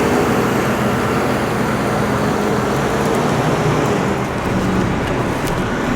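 Grain truck driving, heard from inside the cab: a steady engine hum under an even road and cab noise.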